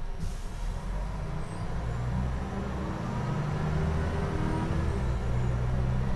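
Scania L94IB bus engine heard from inside the passenger cabin. It pulls the bus along, and its note builds and strengthens about a second and a half in, then holds steady.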